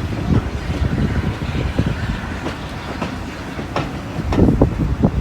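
Railway carriage running along the track: a steady low rumble with the wheels clicking over rail joints.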